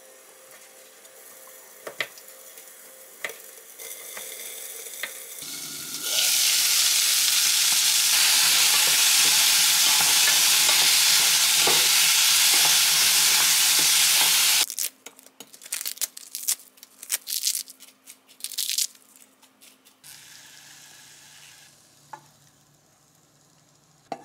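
Diced potatoes and sliced mushrooms sizzling loudly and steadily in a frying pan as they are stir-fried with a wooden spatula. The sizzle starts about six seconds in and cuts off suddenly, followed by irregular knocks and scrapes. Before it come a few faint knife taps on a wooden cutting board.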